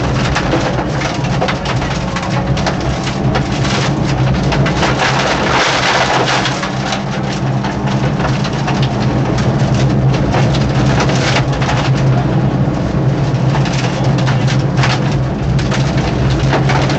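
Peugeot 205 1.9 rally car's four-cylinder engine running hard at sustained high revs, heard from inside the car. Heavy road and underbody noise with many small hits and rattles runs under it.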